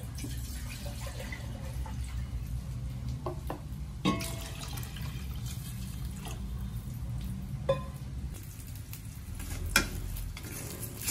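Water pouring in a stream into a stainless-steel stockpot of soup broth, with a few sharp metal clinks about 4, 8 and 10 seconds in.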